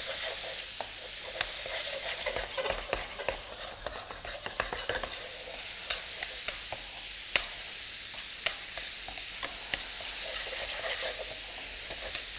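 Sliced red onion and ginger frying in oil on high heat in a large fry pan: a steady sizzle as the onions start to brown. Through it come scattered sharp clicks and scrapes of tongs stirring them against the pan.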